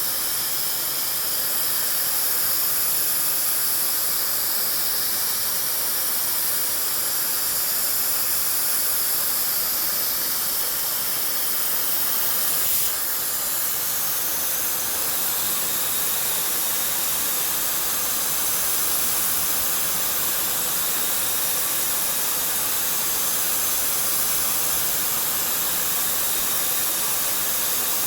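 CNC machine cutting a Ford 6.4L diesel piston, giving a steady hiss with the energy high up. There is a brief tick about 13 seconds in.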